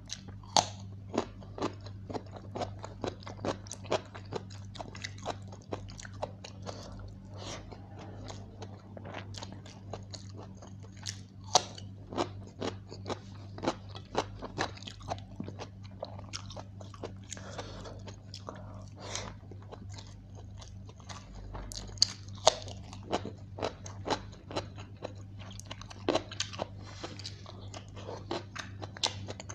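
A person eating chicken biryani and raw cucumber by hand, close to the microphone: chewing with many irregular sharp crunches from bites of cucumber. A steady low hum runs underneath.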